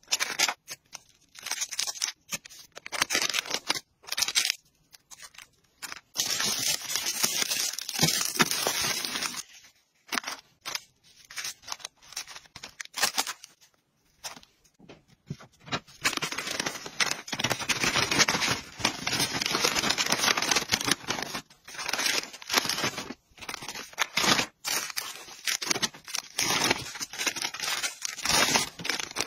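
Small clear plastic snack bags and packets rustling and crinkling as they are handled and packed, in bursts with short pauses.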